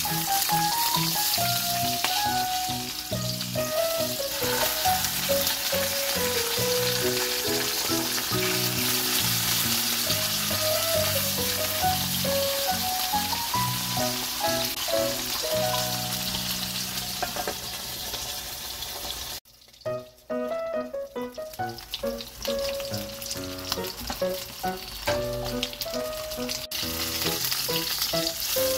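Mackerel fillets sizzling in hot oil in a frying pan, a steady crackling hiss, with background music playing underneath. The sizzle cuts out briefly about two-thirds of the way through, then resumes.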